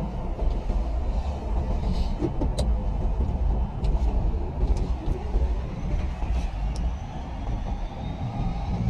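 Helicopter's steady low engine and rotor rumble, with a few faint clicks.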